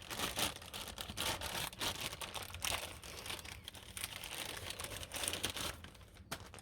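Packaging of a new track rod end crinkling and rustling irregularly as the part and its nuts are handled out of it.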